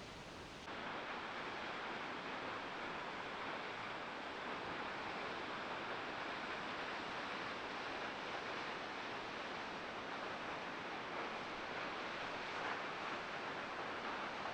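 Steady rushing roar of Spahats Creek Falls, a tall waterfall heard across the canyon from a viewpoint. It steps up a little louder about a second in.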